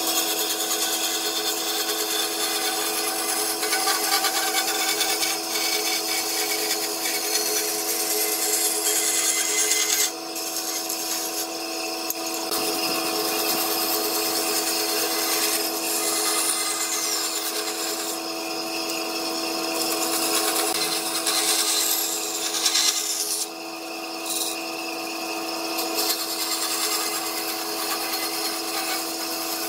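Bandsaw running and cutting a thick block of wood along a curved line: a steady motor hum under a continuous sawing hiss. The cutting noise eases briefly twice as the block is repositioned.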